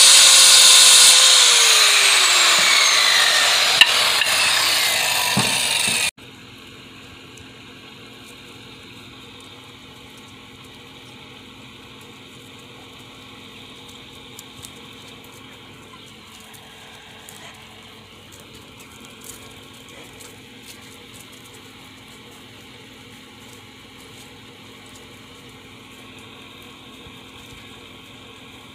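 Corded circular saw cutting through a wooden board, its motor pitch falling as the blade works through the cut. The sound stops abruptly about six seconds in, leaving a much quieter outdoor background with a few soft ticks.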